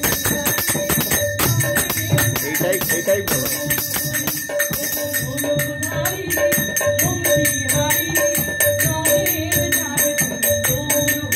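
Group performing a Bengali devotional song: voices singing over a steady beat on a barrel-shaped hand drum and the bright, continuous jingle of small hand cymbals.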